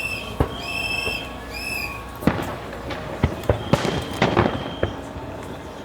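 Fireworks going off at a display: sharp bangs and crackles, several in quick succession from about two seconds in. Before them comes a high tone that pulses on and off about twice a second.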